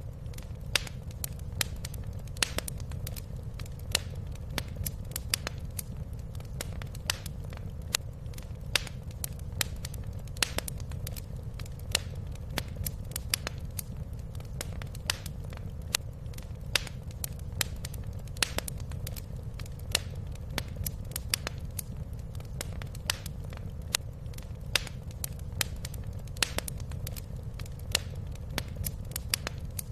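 Wood fire crackling and popping in a fireplace: irregular sharp snaps several times a second over a steady low rumble of the burning fire.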